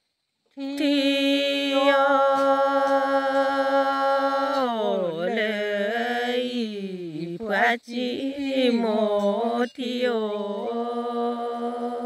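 A single unaccompanied voice chanting a Karen tha, a traditional sung poem. It holds one long note, then slides through a wavering, falling melody broken twice briefly, and settles on another held note.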